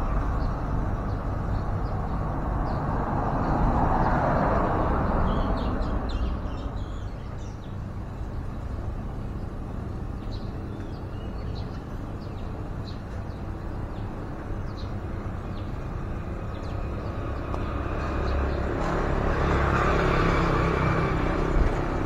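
Road traffic passing, twice swelling up and fading away over a steady low rumble, with scattered short, high bird chirps in between.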